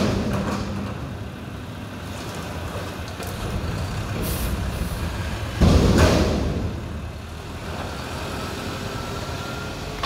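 Mack garbage truck with a McNeilus front-loader body, its diesel engine running steadily, with one loud hiss of air from the air brakes a little past halfway, after which the truck moves off.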